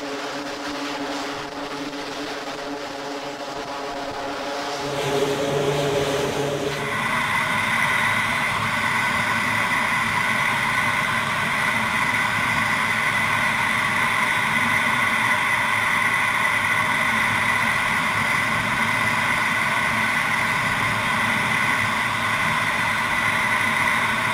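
Twin turboprop engines of an E-2 Hawkeye running on the carrier deck, a steady multi-tone propeller drone. About seven seconds in, this gives way to the steady high whine and rush of a jet's engines heard inside the cockpit in flight, unchanging to the end.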